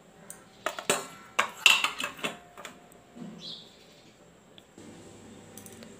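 Stainless steel bowls and plates clinking and being set down on the countertop: several sharp knocks in the first three seconds, some with a short metallic ring, then quiet.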